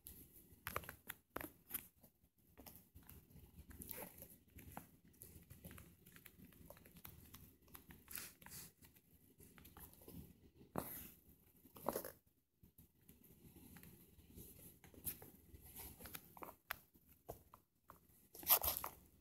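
Faint, irregular clicks and crackles over a low background rumble, with a few sharper clicks standing out, the stronger ones near the end.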